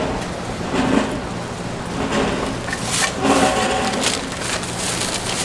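Light clicks and taps of a metal tool against a wheel-cake griddle's moulds over a steady low hum, the sharpest taps about three and four seconds in.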